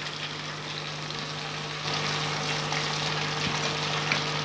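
Mutton pieces deep-frying in hot oil in a steel pot: a steady sizzle with fine crackling that grows a little louder about two seconds in, over a steady low hum.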